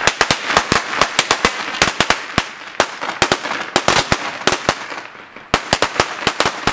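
A brick of small firecrackers going off: a rapid, irregular string of sharp bangs, several a second, with a brief pause about five seconds in before the popping starts again.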